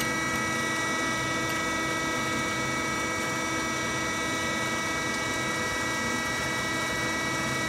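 A steady machine hum made up of several constant tones, with no distinct clicks or knocks.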